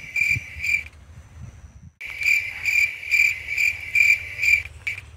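Cricket chirping: a high, pulsing trill of about three chirps a second. It breaks off about a second in, resumes a second later, and stops shortly before the end.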